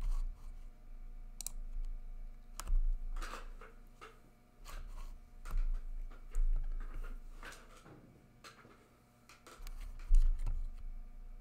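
Scattered clicks, taps and rustles from someone handling things at a desk, with low thumps on the table; the loudest thump comes about ten seconds in.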